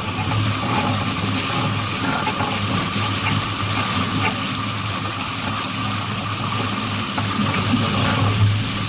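Steady rush of water alongside a sailing boat, with a low steady hum underneath.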